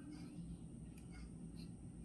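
A clock ticking faintly, about two ticks a second, over a steady low background hum.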